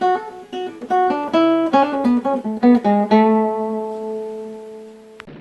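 A short plucked guitar phrase: a quick run of notes and chords for about three seconds, ending on a chord that rings on and fades out.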